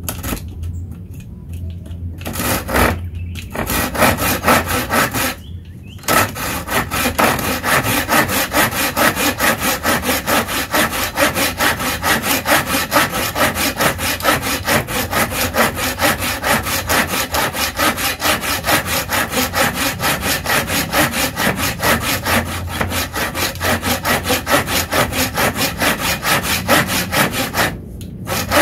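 Tekiro folding saw cutting through a wooden board by hand, its coarse teeth rasping on each push-pull stroke. A few start-up strokes with short gaps in the first seconds, then a fast, steady run of strokes that pauses briefly near the end.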